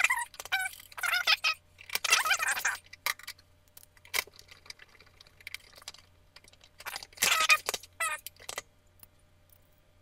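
Rattling and clinking of a space heater's sheet-metal case and grille as it is handled and screwed back together, in several short bursts with a lull in the middle.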